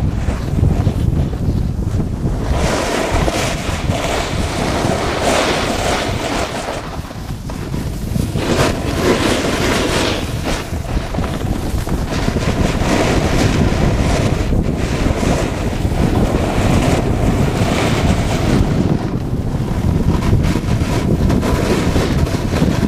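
Wind buffeting an action-camera microphone as a snowboard gathers speed down a groomed piste, with a low rumble throughout. Over it, the Burton Custom Camber snowboard's edges hiss and scrape over packed snow in swells lasting a few seconds each, through the turns.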